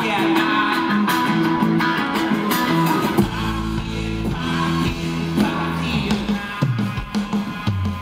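Live rock band playing: a man singing lead over electric guitar, bass guitar and drums, with the deep bass coming in strongly about three seconds in.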